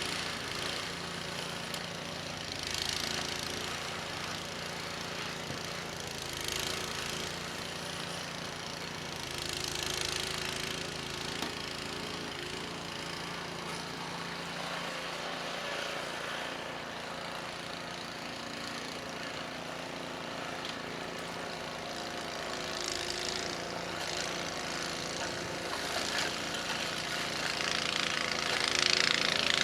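Cub Cadet 2X 524 SWE two-stage snowblower running steadily under load while clearing heavy wet snow, with a rushing noise swelling several times as snow is churned and thrown, loudest near the end.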